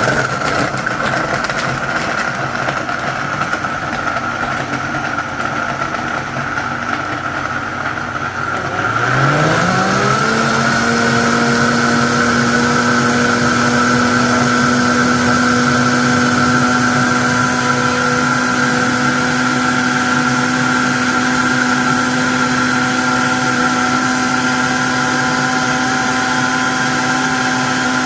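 Vitamix A3500 Ascent blender running its one-touch smoothie program on frozen fruit, greens and water: the motor runs at a lower speed for about nine seconds, then its whine rises quickly to a higher speed and holds there steadily.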